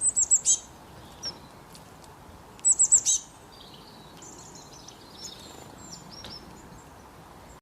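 Songbirds singing: two quick runs of about five high, falling notes, one at the start and one about three seconds in, with fainter chirps and twittering between, over a faint steady hiss.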